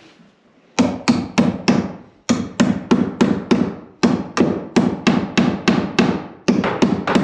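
Hammer driving nails into a wooden wall stud to fix an electrical box, with quick blows about three a second in runs of several and short breaks between.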